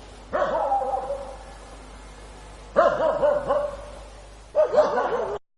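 A dog barking three times, each bark sharp at the start with a drawn-out tail falling in pitch; the sound cuts off abruptly near the end.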